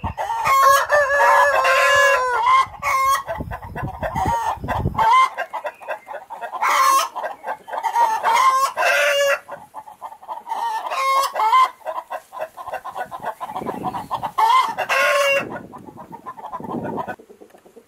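A flock of chickens calling: hens clucking and cackling in repeated bursts, with a rooster crowing. A low rumble underneath stops about five seconds in.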